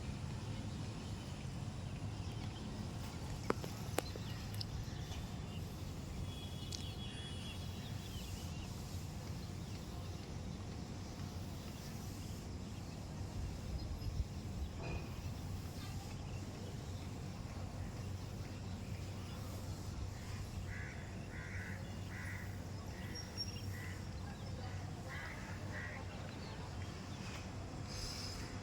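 Steady wind noise on the microphone, heavy in the low end. Two sharp clicks come a few seconds in, and a bird calls a run of about eight short calls in the last third.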